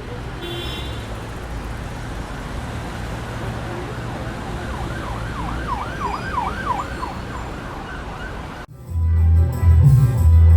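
Steady background noise with a siren yelping in quick rising and falling sweeps a little past halfway. Near the end it cuts abruptly to loud dangdut band music with heavy bass and drums.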